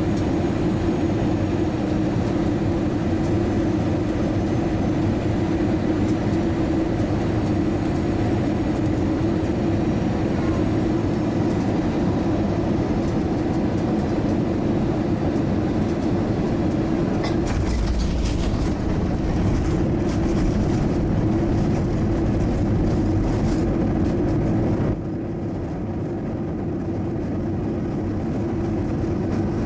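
Cabin noise of an Airbus A320-232 with IAE V2500 engines landing: a steady engine and airflow noise with a constant hum. About 17 seconds in comes a low thump as the main wheels touch down, followed by several seconds of rumbling and rattling along the runway. The noise drops abruptly about 25 seconds in.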